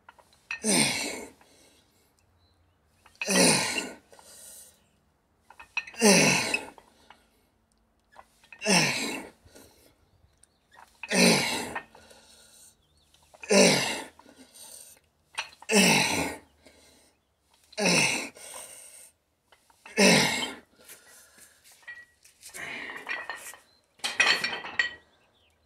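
A man huffing out a hard, grunting breath on each rep of dumbbell shrugs, about one every two and a half seconds, nine in a row. Near the end, as the set ends and the dumbbells are set down, come a rougher run of breaths and metal clinks.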